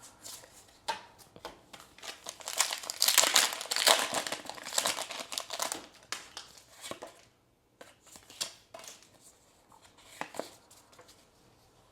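Foil Pokémon booster pack wrapper crinkling and being torn open, loudest about three to five seconds in, followed by a few sharp handling clicks.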